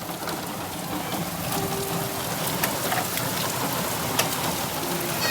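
Heavy rain pouring down steadily, with the sharp ticks of individual drops striking close by.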